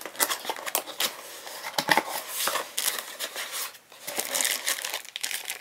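A cardboard product box being opened by hand: a run of scrapes, clicks and rustles from the cardboard flaps and the packing inside, with a short lull a little before four seconds in.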